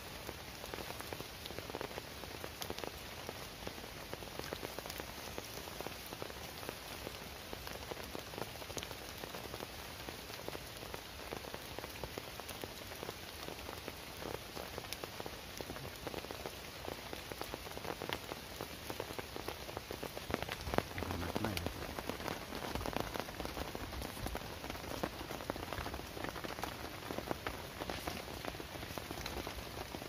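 Heavy rain falling steadily on a tarp shelter and the surrounding forest, a dense even patter of drops. A brief low knock about two-thirds of the way through.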